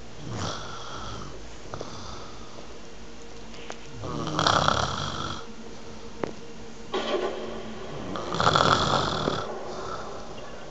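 Snoring: a faint snore at the start, then two loud drawn-out snores, one about four seconds in and one from about seven to nine seconds in.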